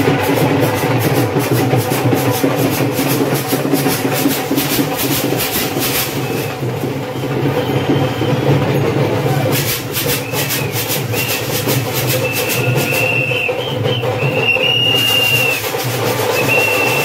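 Festival procession music: fast, clattering dhol drumming over a steady low drone. Several short, high steady tones join in from about the middle on.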